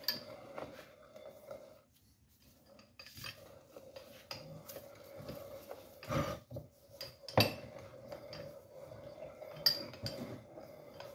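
Metal parts of a hoist spindle clinking and rubbing against each other as they are handled, with sharper knocks about six and seven seconds in, over a faint steady hum.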